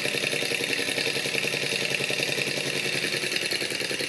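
ENJOMOR gamma-type Stirling engine running, its piston and flywheel making a rapid, even clatter while it drives a small generator through its pulley.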